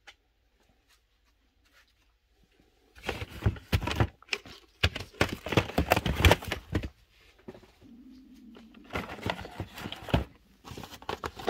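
Cardboard boxes being handled and shifted: rustling, scraping and knocking of cardboard in two spells of bursts, the first and loudest starting about three seconds in.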